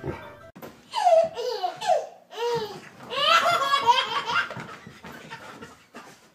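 Toddler laughing in several high-pitched bursts, the longest about three seconds in.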